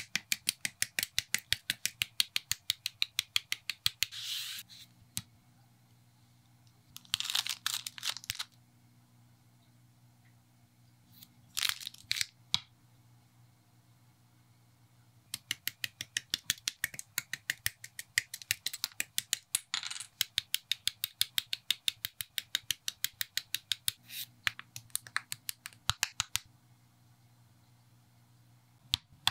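Plastic model-kit parts clicking and snapping in quick, evenly spaced runs of about five clicks a second, cut into a beat. Three short crinkling, rustling bursts come in between, over a faint low hum.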